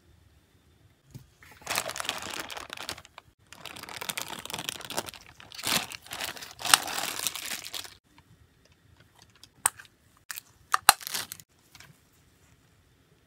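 Thin clear plastic wrapper crinkling and tearing as it is pulled open around a plastic toy capsule. Near the end come a few sharp hard-plastic clicks from the toy being handled.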